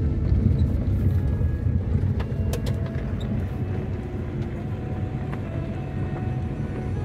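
Car driving along a road, heard from inside the cabin as a steady low engine and road rumble. A few short knocks come about two and a half seconds in.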